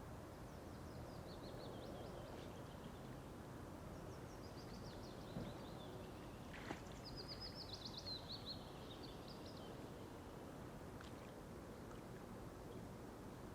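A songbird singing several short phrases of high, quickly repeated notes, over a faint steady hiss of outdoor background noise. A single soft click sounds about halfway through.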